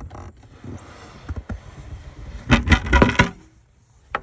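A plywood tabletop being handled on a pickup's carpeted drawer: a soft scraping as it slides, then a cluster of knocks and thumps about two and a half seconds in.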